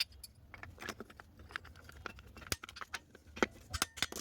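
Irregular small clicks, clinks and knocks of metal parts and hand tools being handled, several a second, with a few sharper knocks in the second half.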